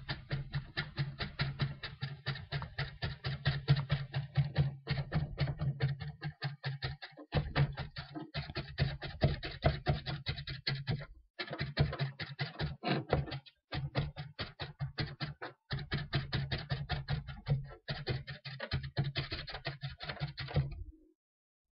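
Kitchen knife mincing green onion on a plastic cutting board: quick, even knife strikes several times a second, stopping briefly now and then, with a low thud of the board under each stroke.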